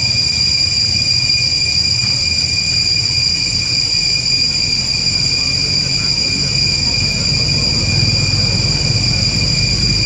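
A steady high-pitched drone of two even tones over a low rumble that grows slightly near the end.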